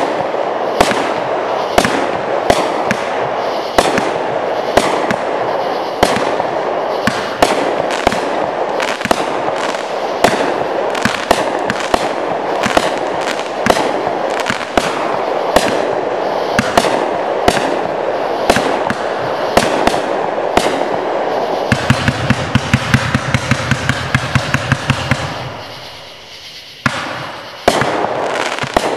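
AFW 'Chaotic' 63-shot 500-gram consumer repeater cake firing: sharp shots about one to two a second over dense crackling from the bursting stars. About three quarters through, a fast run of pops comes several a second, then the firing dies down briefly before the shots resume.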